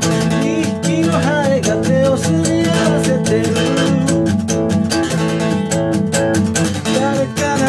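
Gibson J-45 acoustic guitar strummed in a steady, busy rhythm, its chords ringing on.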